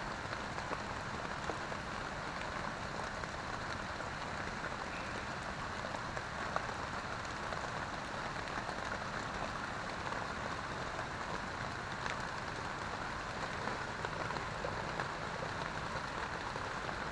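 Steady rain falling on a tent, an even hiss with the odd louder drop.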